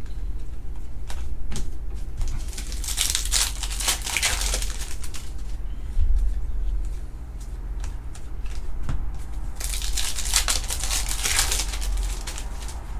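Trading cards being handled and sorted: two spells of papery rustling and crinkling, a few seconds in and again near the end, with scattered light clicks, over a steady low hum.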